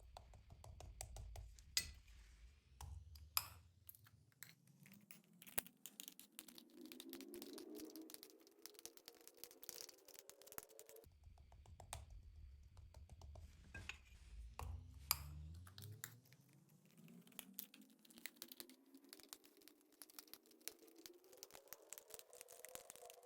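Faint clicking, clinking and scraping of slime being worked and stirred, with a low tone that slowly rises in pitch, twice over.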